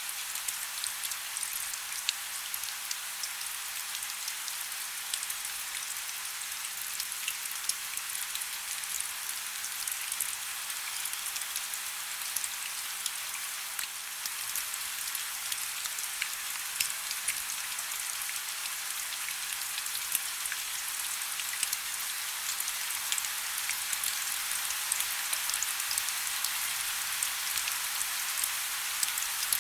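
Heavy rain falling steadily: a constant high hiss speckled with the crackle of countless individual drops striking a surface, with almost no low rumble.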